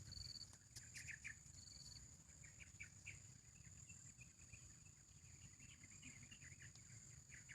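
Faint, distant birds chirping in short scattered calls, with a couple of brief high whistled notes near the start, over a steady high-pitched insect drone.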